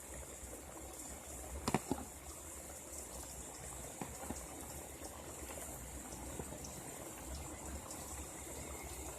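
Pot of boiled channa (chickpeas) simmering on the stove with faint, steady bubbling, and a couple of light knocks about two and four seconds in.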